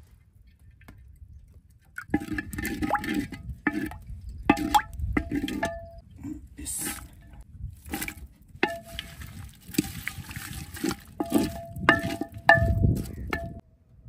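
Wooden spoon stirring sliced onions in oil in a clay pot, knocking and scraping against the pot, which rings briefly after many of the knocks. The knocks begin about two seconds in and come irregularly, several a second.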